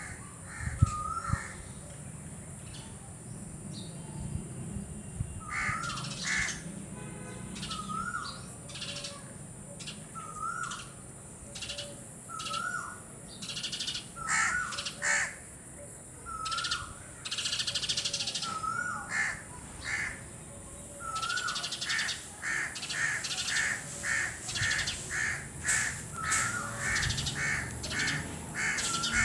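Short bird-like calls, each with the same wavy pitch, repeated about once every second and a half and coming faster near the end, with scattered clicks between them.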